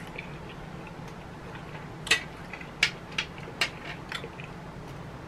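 Someone eating a forkful of rice and quinoa: five sharp clicks and smacks of fork and mouth between about two and four seconds in, over a low steady hum.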